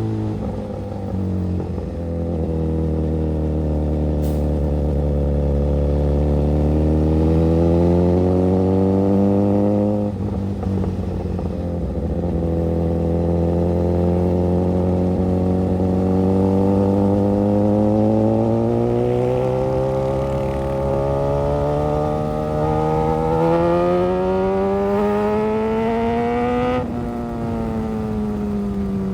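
Suzuki GSX-S1000's inline-four engine pulling under gentle throttle, its pitch climbing slowly through each gear and dropping sharply at upshifts, about ten seconds in and again near the end.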